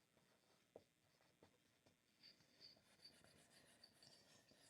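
Faint writing sounds: a few light taps, then from about halfway a soft, continuous scratching of a pen or marker stroke on a writing surface.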